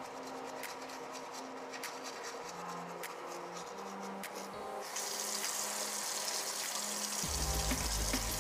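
Manual toothbrush scrubbing teeth under quiet background music. About five seconds in, a steady rushing hiss sets in, and near the end a heavy bass line comes into the music.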